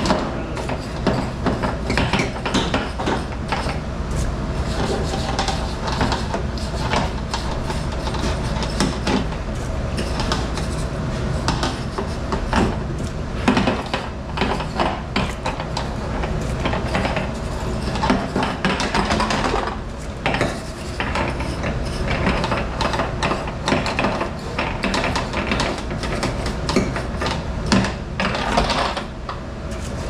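Dishes and cutlery clattering, with many short knocks and clinks, over a steady mechanical rumble.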